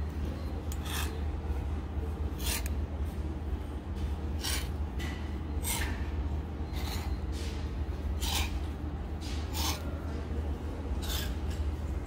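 Plastic clothes hangers pushed one at a time along a metal clothing rail, each a short sliding scrape with the rustle of the shirt on it, about eight in a row at roughly one every second and a half. A steady low hum runs underneath.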